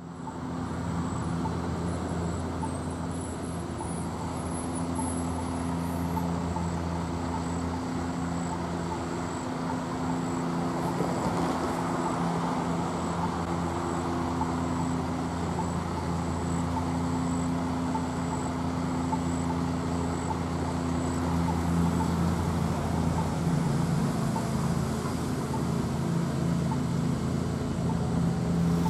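Road traffic at a signalled intersection: a steady hum of car and truck engines idling and passing. A faint, regular high ticking runs underneath, and the traffic grows a little louder about two-thirds of the way through.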